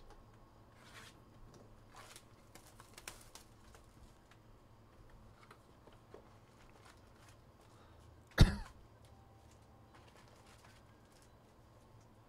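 A person coughs once, sharply and close to the microphone, about eight seconds in. Faint scattered clicks and taps come before it.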